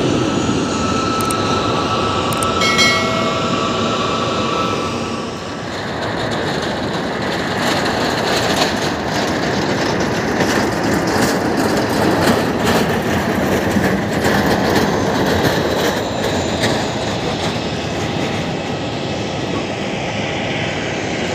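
Jet airliner engines roaring as planes land: first a Boeing 737 touching down, its engine tone falling as it passes, then after a brief dip about five seconds in, the steady roar of a second jet, a cargo plane, landing.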